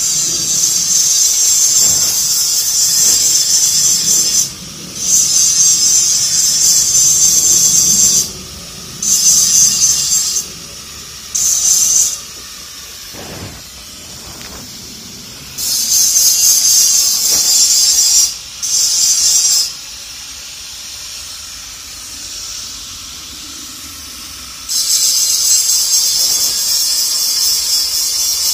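Angle grinder grinding steel: a harsh, high-pitched hiss that starts and stops in bursts of one to four seconds, about seven times.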